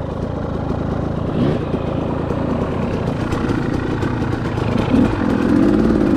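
KTM two-stroke enduro dirt bike engine running at low speed, with a couple of short throttle blips that rise and fall in pitch.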